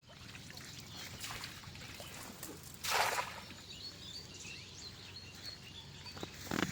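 Small birds chirping repeatedly over a low steady hum, with one short loud rushing noise about three seconds in.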